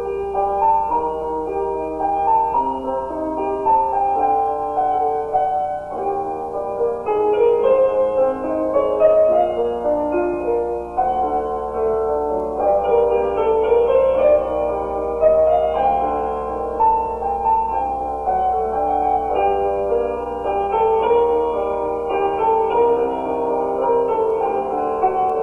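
Solo piano playing a continuous run of sustained, overlapping notes. This is the short film's piano score, recorded by a pianist in a single take.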